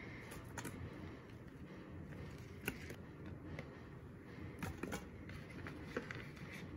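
A few light clicks and taps, scattered over several seconds, as chopped onion and carrot pieces are set into the stainless-steel inner pot of an Instant Pot, over faint room noise.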